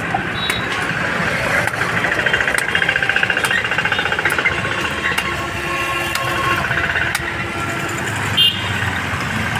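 Machete chops cutting into a green tender coconut's husk: short sharp knocks spaced a second or so apart, with a louder hit near the end. Under them a motor vehicle engine runs with a fast throb, loudest in the first half.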